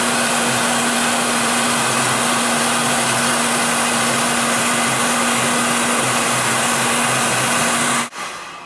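Electric heat gun running at a steady pitch, its fan blowing with a motor hum, while it heats a rubber tie rod boot. It is switched off abruptly about eight seconds in.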